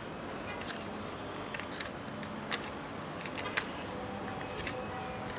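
Steady outdoor city background noise heard from a rooftop, with scattered short clicks and ticks through it.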